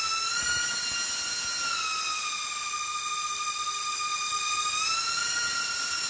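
Four brushless motors spinning counter-rotating propellers on a 6S-powered RC car, making a high steady whine. The pitch sags a little about two seconds in and climbs back near five seconds. It is running at enough thrust to hold the car pressed against the underside of a table.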